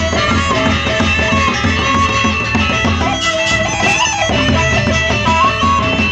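Gendang beleq ensemble playing: the large barrel drums keep a steady beat under a suling flute melody, with cymbals and gongs. About three seconds in the melody makes a wavering run over a brief bright clash.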